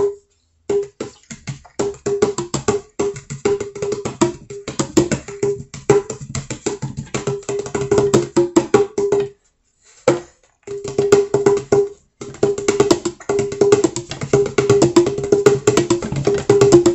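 A pair of LP mini tunable congas with freshly replaced skins, played by hand in quick, busy patterns. Each stroke sounds a short, pitched drum tone, and the playing stops briefly twice.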